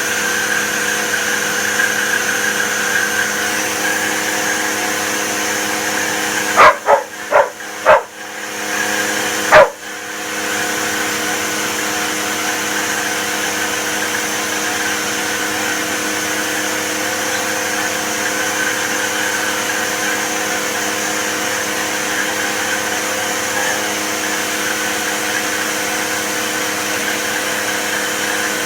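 Vacuum cleaner running steadily with a hum and hiss. A Labradoodle lets out several sharp, loud barks between about seven and ten seconds in, and the vacuum's noise dips while it barks.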